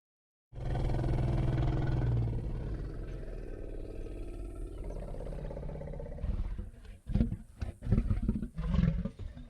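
Ceratosaurus roar and growl sound effect. A long, deep growl starts about half a second in and slowly fades. It is followed by a run of short, sharp grunts in the last two or three seconds.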